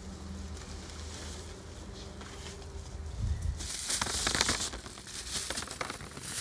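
A plastic carrier bag crinkling loudly as potatoes and pointed gourds are tipped out of it onto a woven bamboo winnowing tray, the vegetables knocking onto the bamboo, starting about three and a half seconds in. Before that, a low steady hum.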